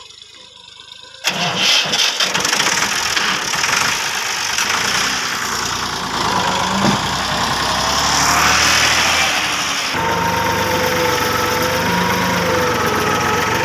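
Massey Ferguson 260 Turbo tractor's three-cylinder diesel engine running, cutting in suddenly about a second in. Its pitch rises and falls around the middle, then it settles to a steadier running sound near the end.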